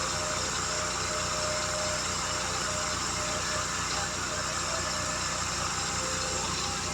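An engine idling steadily, with an even low pulse.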